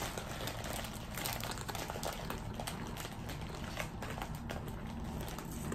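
Close-up chewing of a Fruit Roll-Up frozen hard around mint chocolate chip ice cream: a steady run of small crunches and crackles.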